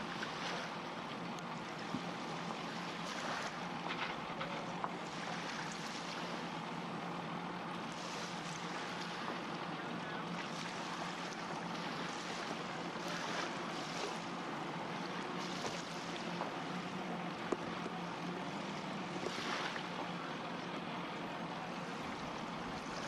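Steady low drone, like a boat's engine underway, under wind gusting on the microphone and rushing water.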